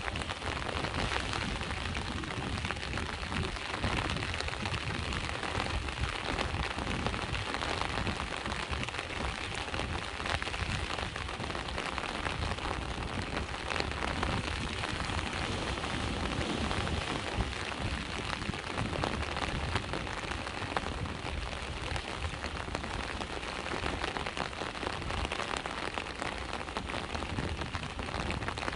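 Steady rain falling and pattering on surfaces, an even hiss of many fine drops without a break.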